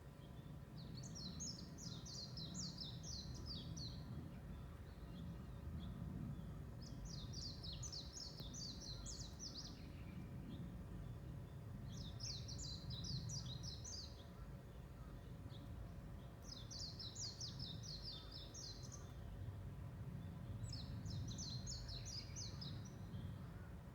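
A small songbird singing the same quick, high twittering phrase again and again, each phrase two to three seconds long and coming about every five seconds, over a steady low rumble.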